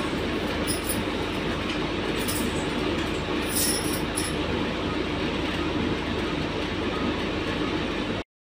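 Steady rushing background noise with a constant low hum and a few faint high ticks, cutting off abruptly into total silence near the end.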